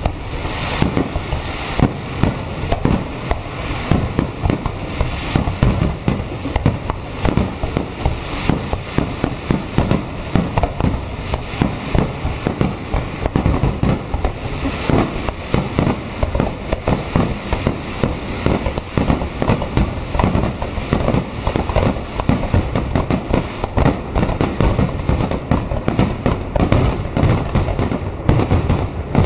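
Fireworks display at its height: a dense, unbroken barrage of aerial shell bursts, many sharp bangs a second overlapping one another.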